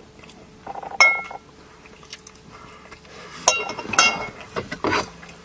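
Eating utensils clinking against a dish or pot during a meal: four or so sharp clinks, a few of them ringing briefly.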